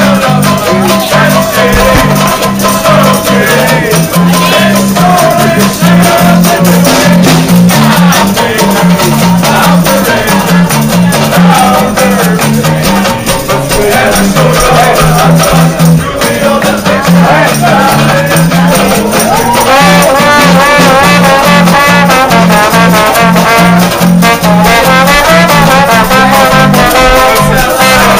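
Live brass band playing upbeat dance music, with saxophone and trombone over a drum kit keeping a steady beat, and a banjo strumming along.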